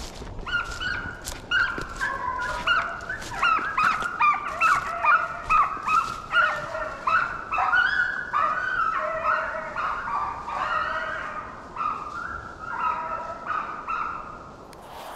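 A pack of deer hounds baying and yapping, many short overlapping calls two or three a second, easing off near the end: hounds giving voice as they run a deer's trail.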